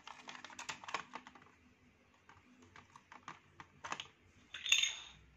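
Scattered light clicks and taps of a hard plastic toy train being handled and turned over in the hand, with a short louder burst near the end.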